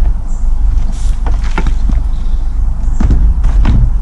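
A black plastic plant pot being knocked and lifted off a block of potting compost in a wheelbarrow: a few knocks and scrapes around a second in and again around three seconds in, over a steady low rumble.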